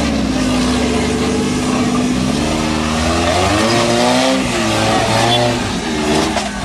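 Off-road rock crawler's engine revving under load while climbing a boulder ledge, its revs rising and falling repeatedly through the middle of the climb.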